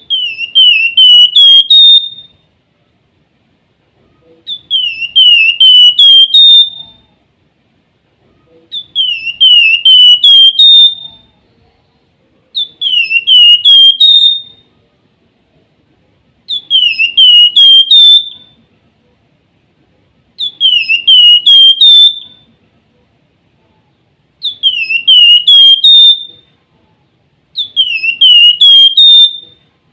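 Flamboyan (wergan jawa, Javan fulvetta) singing its whistled 'nyiul' phrase over and over: a quick run of four or five sliding notes ending on a higher one, repeated about every four seconds.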